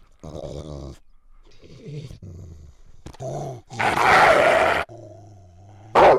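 Were-dog creature sound effect: a few short low growls, then a long, loud, harsh roar about four seconds in, followed by a low held growl and a sudden loud burst near the end.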